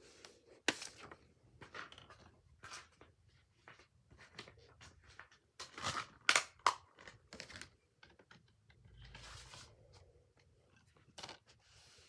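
Rustling, crinkling handling noises as a paper flyer and a plastic Blu-ray case are picked up and handled. They come as irregular short scrapes and clicks, with a sharp click about a second in and the loudest cluster about six to seven seconds in.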